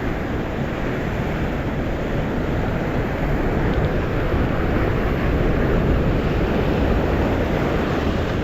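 Wind noise buffeting the microphone over rough monsoon sea surf, a steady dense rush that swells a little past the middle.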